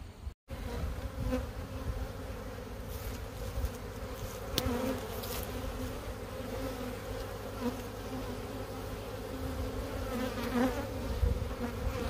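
Honeybees buzzing over an opened hive as a bee-covered frame is lifted out: a steady hum, with a few single bees rising and falling in pitch as they pass close.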